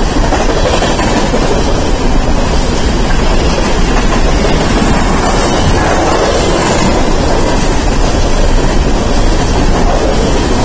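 A train of empty coal hopper cars rolling past close by, its steel wheels running over the rails with a steady, loud noise.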